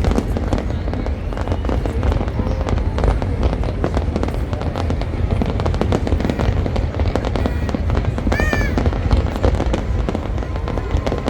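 A large fireworks display: shells bursting in quick succession, a dense run of sharp bangs and crackles over a constant deep booming rumble. A brief high-pitched call rises and falls about eight seconds in.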